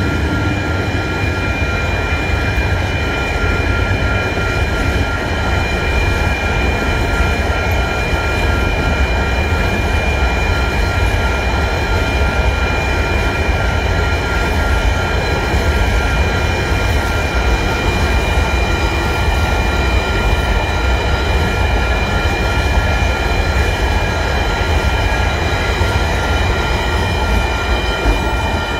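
Freight train rolling past: a steady low rumble of the wagons going by, with a steady high-pitched whine above it throughout.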